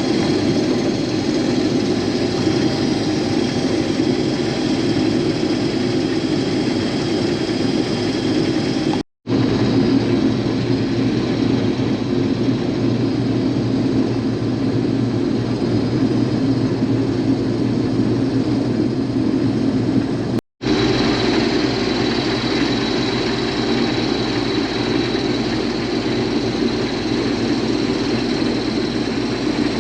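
Case IH combine running steadily under load while cutting wheat: engine hum and threshing noise, with crop going through the machine. The sound is broken twice by a split-second gap.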